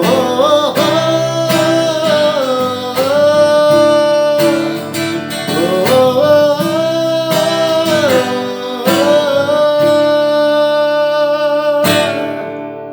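A voice singing long, sliding held notes over a strummed acoustic guitar. Near the end a last strum rings out and fades as the song ends.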